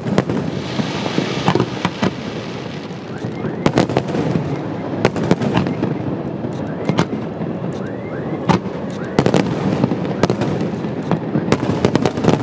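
Aerial firework shells bursting in quick succession: a continuous rumble of bangs with sharper booms standing out every second or so. There is a crackling hiss near the start.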